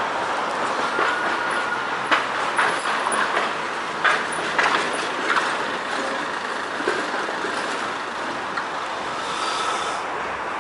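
Tatra tram rolling past, its wheels clacking over the rails in a run of sharp knocks a couple of seconds in, over steady street traffic noise.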